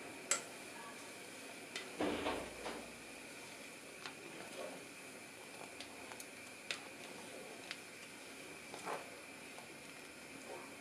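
Tea heating in an aluminium pot on a gas stove with a steady faint hiss, while a plastic cup stirs and scoops in it, giving scattered light clicks against the pot and a louder clatter about two seconds in.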